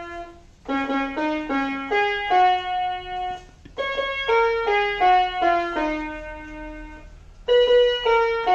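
Portable electronic keyboard played one note at a time: a simple melody in three short phrases with brief pauses between them.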